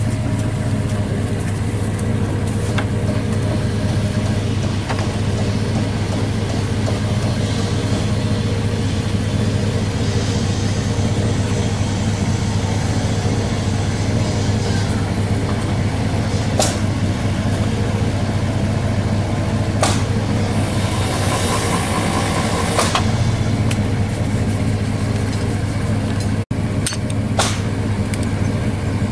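Engine of a well-service pump truck idling steadily with a constant low hum. A few short, sharp clicks sound over it in the second half.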